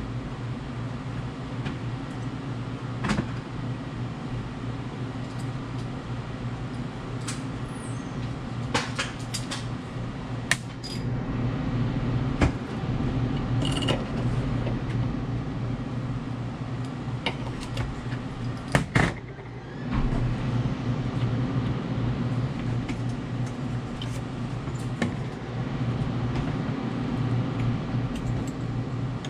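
A steady low electrical hum, with scattered clicks and knocks of hand tools against the metal auger shaft and housing of an ice machine. A sharper knock comes about halfway through, and a louder clatter about two-thirds in.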